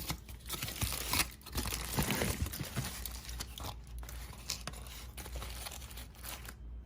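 Aluminium foil crinkling and tearing as hands open a foil-wrapped roast chicken, in irregular crackles that are loudest about one to two seconds in.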